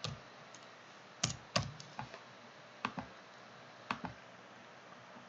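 Scattered clicks from a computer keyboard and mouse: about six sharp single clicks, roughly a second apart.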